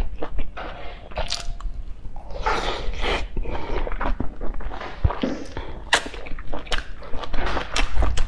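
Close-miked eating: a person biting into and chewing a soft steamed stuffed bun, with irregular wet mouth clicks and short noisy smacks.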